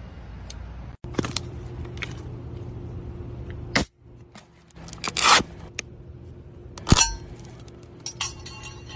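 Pressurized tennis ball can opened by its metal pull-ring: a short, loud hiss of escaping air, then a sharp metallic snap as the lid tears free, followed by light metallic rattling.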